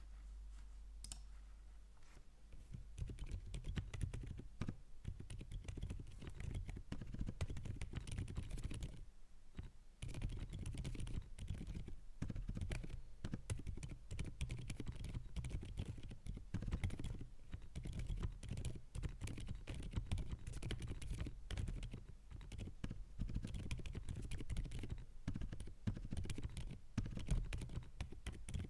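Typing on a GAS67 65% custom mechanical keyboard fitted with lubed Outemu Silent Creamy switches: a fast, continuous run of keystrokes that starts about two seconds in, with a short pause about nine seconds in.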